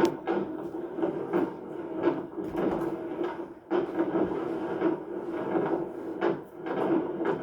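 Vehicle cabin noise while driving: a steady drone with many irregular knocks and rattles.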